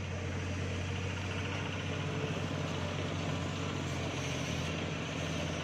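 An engine running steadily: an even, low hum that holds at one pitch throughout.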